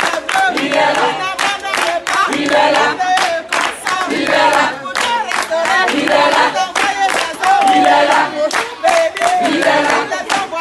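A group of people singing together to steady, rhythmic hand clapping.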